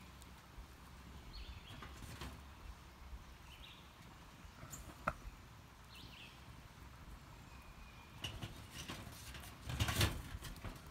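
Sticks being fed into a burning tin-can hobo stove: scattered sharp snaps and knocks of wood, with a cluster of louder knocking and scraping near the end as sticks are pushed down into the can. Small birds chirp briefly several times.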